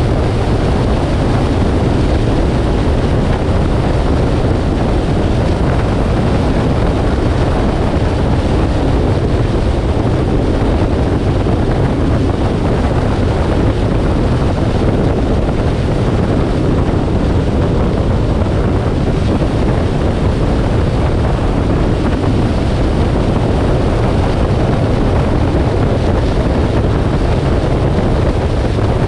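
Steady rush of wind and road noise from an SUV driving at speed, with wind buffeting the microphone.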